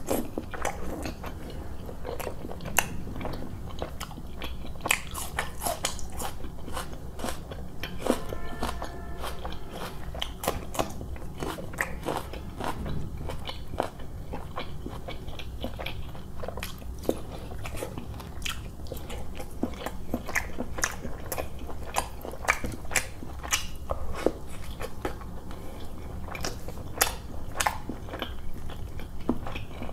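Close-miked eating sounds of a man chewing curry-soaked roti and chicken with his mouth open. Wet smacking and chewing run throughout, broken by irregular sharp clicks and crunches.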